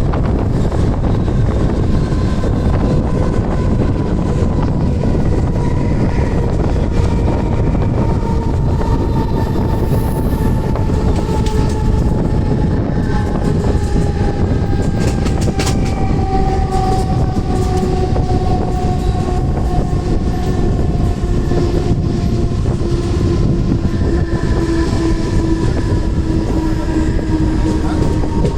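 Mumbai suburban electric local train running, a steady heavy rumble of wheels on rails with a motor whine that slowly falls in pitch, and a few rail clicks midway.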